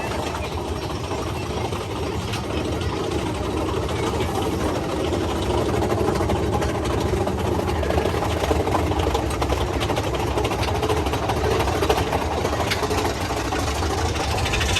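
Big Thunder Mountain Railroad mine-train roller coaster running along its track: a steady rumbling rattle of the cars with scattered clicks, growing a little louder.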